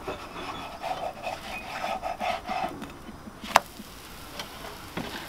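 Plastic spatula scraping against a nonstick frying pan as it is worked under a zucchini pancake to flip it: a run of short scrapes, then one sharp clack about three and a half seconds in.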